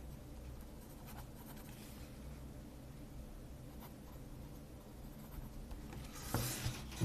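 Pen writing on paper: faint, scattered scratching strokes, with a louder scrape about six seconds in.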